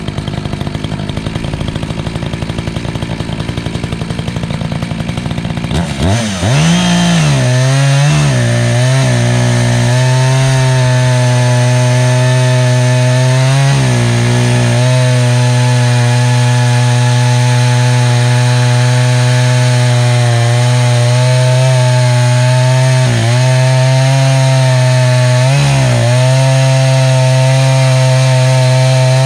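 Echo CS-590 Timber Wolf two-stroke chainsaw running slower for about six seconds, then throttled up to a high steady pitch and held there, cutting a lengthwise milling cut through a cedar log. The pitch dips briefly a few times as the bar loads in the wood.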